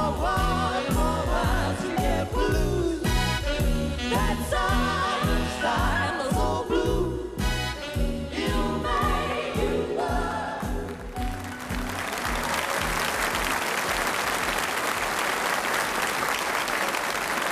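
Close-harmony vocal group singing over a swing band with a steady beat, the song ending about eleven seconds in. An audience then applauds steadily.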